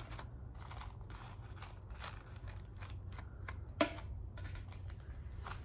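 Soft, scratchy rustles and ticks of rice paper being smoothed down over decoupage medium on a curved duck decoy, with one slightly sharper click about four seconds in, over a steady low hum.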